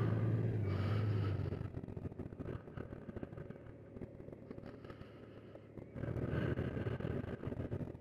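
Honda Gold Wing Tour DCT's flat-six engine running quietly as the motorcycle coasts downhill and slows on engine braking. A low hum fades after about a second and a half, and the noise swells again for a second or so near the end.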